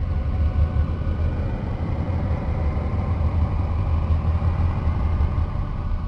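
Steady low rumble with a few faint held tones above it: a space recording presented as the sound of Miranda, Uranus's moon, made from radio emissions converted into audible sound.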